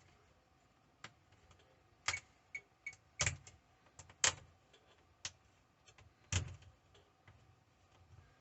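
Sharp, irregular plastic clicks and snaps, about eight of them, as the clips of a Samsung Chromebook's screen bezel are pried loose.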